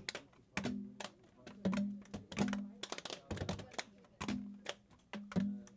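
Gloved hands clapping and slapping the open tops of tall plastic graduated cylinders in a rhythm. Quick sharp claps and taps are mixed with short hollow pitched pops that come about once a second.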